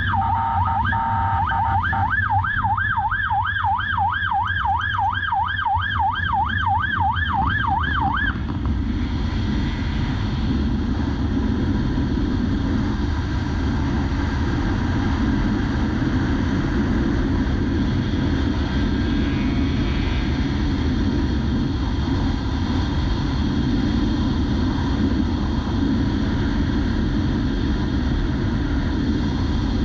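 Police motorcycle siren in a fast up-and-down yelp, about three cycles a second, cutting off about eight seconds in. After that only the steady rumble of the motorcycle's engine and wind rush remains.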